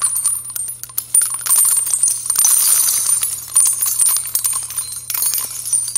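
Jingling, clinking sound effect: a dense, continuous run of small bright clicks and jingles over a low steady hum.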